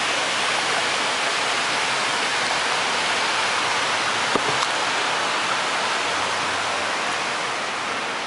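Fountain jets spraying and splashing water into their basin, a steady rushing hiss, with one brief click about halfway through.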